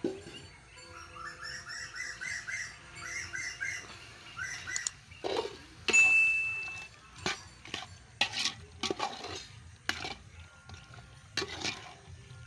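Metal spoon clinking and scraping against an aluminium pot as raw meat is stirred with spices, heard as a string of sharp clinks through the second half. A loud, short steady tone sounds about halfway through, and a bird calls repeatedly in the background during the first few seconds.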